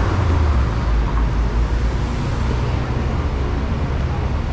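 City street traffic: vehicle engines running with a steady low rumble under road noise.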